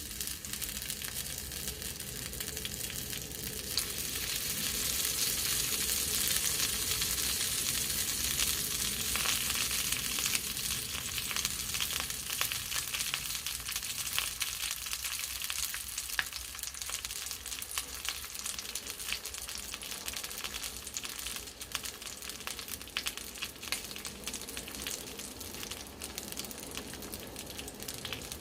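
Vienna sausages frying in a frying pan: a steady sizzle full of fine crackles and pops. It grows louder about four seconds in.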